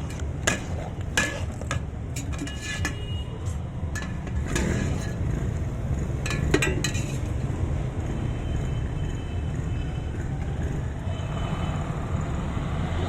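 Metal utensils and dishes clinking several times, with the clinks thinning out after the first half, over a steady low rumble.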